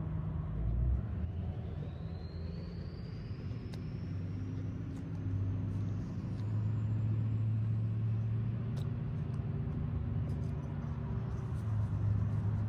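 A steady low engine hum, as of a motor running, with a faint thin whine that rises slowly in pitch over several seconds in the first half.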